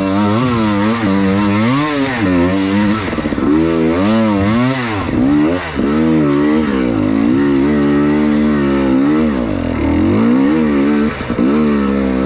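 Enduro motorcycle engine under load on a trail, revving up and down again and again as the throttle is worked, with a few brief drops in revs near the end.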